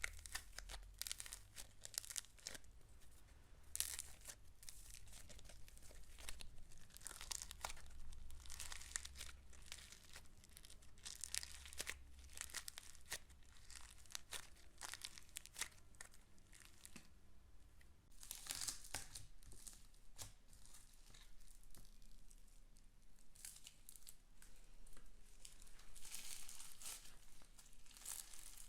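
Slime being squeezed, stretched and pressed by hand, giving a dense, irregular run of sticky crackles and small pops.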